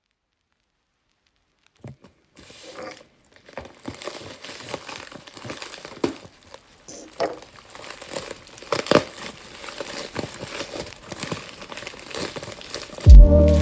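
Packaging being crinkled and torn open by hand, an irregular run of rustling with sharp crackles that starts about two seconds in. Loud music comes in near the end.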